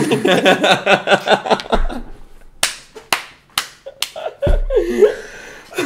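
Two men laughing hard, then about four sharp hand claps roughly half a second apart, followed by a short burst of laughing voice.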